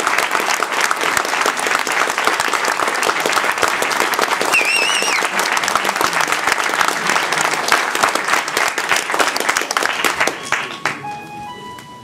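Theatre audience applauding steadily, with one brief warbling whistle about four and a half seconds in. Near the end the clapping dies away as the show's music comes back in with held notes.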